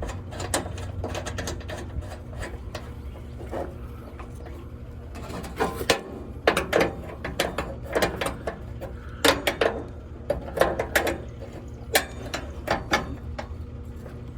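Metal-on-metal clicking and clattering in bursts as the new propane hose is fitted to a gas grill and its bolt tightened. The clicks are sparse at first, then come in quick, louder clusters from about five seconds in.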